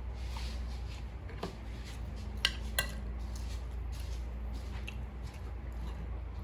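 Plates and tableware clinking and tapping during a meal, with two sharper clinks close together about two and a half seconds in, over a steady low hum.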